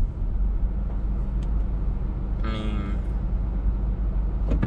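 Steady low road and engine rumble inside a moving Honda car's cabin. About halfway through comes a brief pitched sound lasting about half a second.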